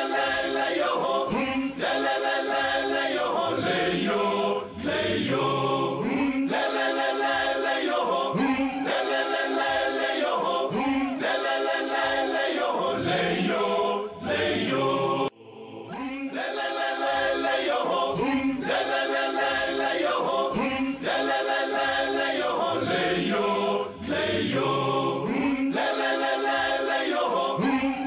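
A choir singing an unaccompanied, chant-like song. The singing breaks off briefly about halfway through and then starts again.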